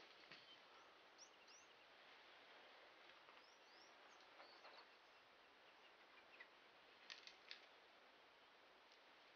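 Near silence: faint outdoor ambience with a few faint, brief, high bird chirps, and two soft clicks a little after halfway.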